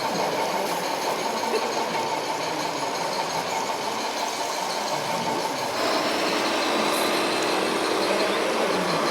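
Small electric motors and gearboxes of radio-controlled model vehicles whining steadily. About six seconds in, the whine changes to a lower note.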